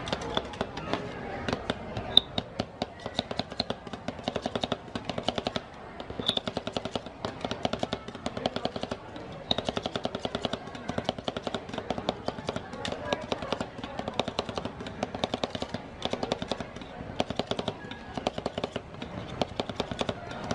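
Two metal spatulas rapidly chopping on a frozen steel cold plate: a fast metal-on-metal clatter of taps in quick runs with brief pauses, as cupcake pieces are chopped into rolled ice cream mix.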